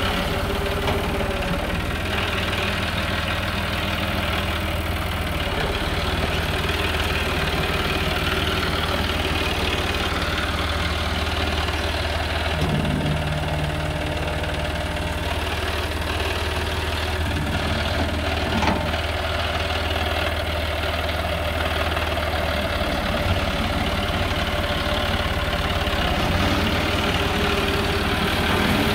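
John Deere 5303 tractor's diesel engine running steadily while its front-loader bucket scrapes and spreads gravel; the low engine note changes about three-quarters of the way through.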